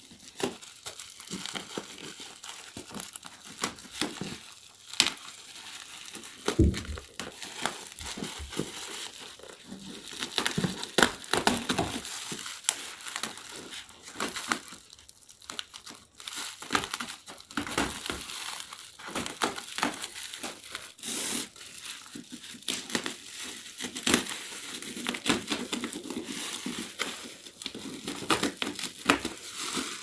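Black plastic bubble wrap and clear packing tape crinkling, crackling and tearing as a parcel is cut open with scissors and pulled off a cardboard box, with many sharp clicks and snaps.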